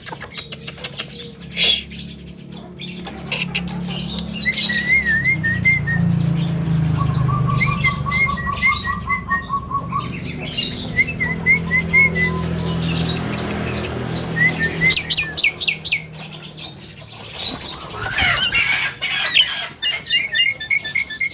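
Javan myna calling: short runs of quick, repeated chirping and chattering notes with sharp clicks, over a low steady hum through the middle.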